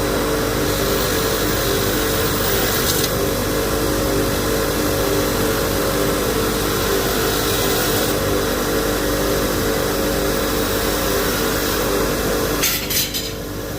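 An electric power tool running steadily: a whirring hum under a loud hiss, easing off near the end.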